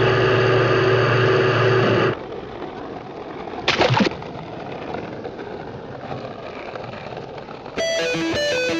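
A loud steady humming tone for about two seconds, then an even rushing noise with a brief louder burst just before halfway. Guitar music comes in near the end.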